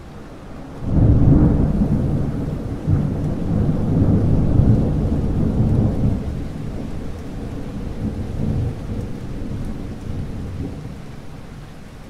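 A thunderclap breaking in suddenly about a second in as a loud low rumble, rolling on in several peaks and slowly dying away near the end, over steady rain.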